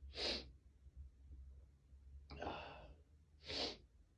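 Congested breathing of a person with a head cold: a sharp, hissy breath right at the start, a longer sighing breath out about two seconds in, and another sharp breath near the end.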